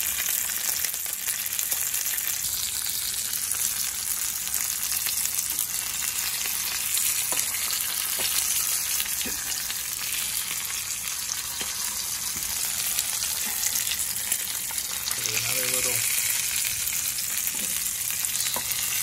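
Sesame-crusted bonito loin searing in hot avocado and peanut oil in a cast iron skillet: a steady sizzle, with a few light ticks.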